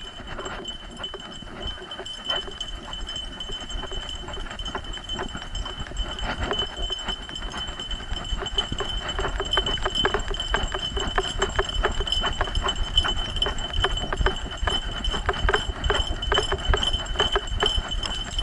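A dog running on a dirt trail, heard through an action camera strapped to its back: its harness and the camera mount rattle rhythmically with every stride, with a steady high tone underneath. The pace quickens and the rattle grows louder about halfway through.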